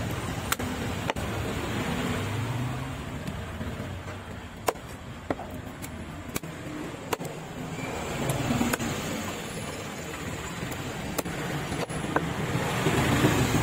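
A long, heavy fish knife chopping through giant trevally pieces onto a wooden log block: about ten sharp knocks at irregular intervals. Under them is a steady rumble of street traffic that grows louder near the end.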